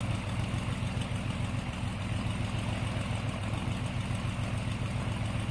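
Biplane's piston engine running steadily: a low, even drone with a fast regular pulse.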